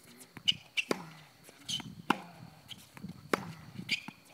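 Tennis rally on a hard court: sharp pocks of the ball off racket strings and off the court surface, roughly one a second.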